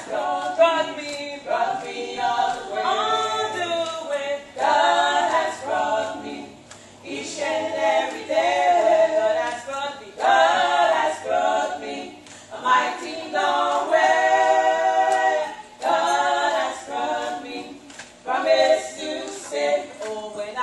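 Two women singing together a cappella, without instruments, in long sung phrases with brief pauses for breath between them.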